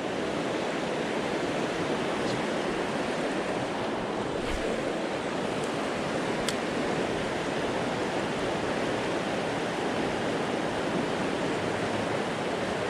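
Swollen river rushing through rapids, a steady, unbroken sound of fast water; the river is running high with snowmelt and rain.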